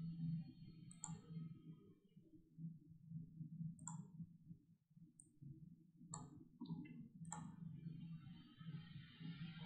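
Computer mouse clicking, about six separate sharp clicks spread over several seconds, over a faint steady low hum. A soft hiss comes in near the end.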